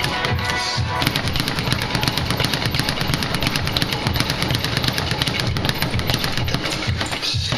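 Speed bag being punched nonstop, the leather bag rattling against its rebound board in a fast, steady rhythm of many hits a second.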